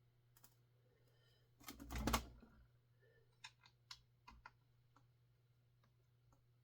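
Hand tools and parts being handled during a chainsaw teardown: a brief scraping clatter about two seconds in, then about six light clicks over the next second or so.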